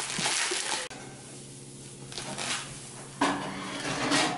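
Plastic bag and metallic foil tinsel crinkling and rustling as they are handled, with a louder burst of rustling about three seconds in as the tinsel is pulled out.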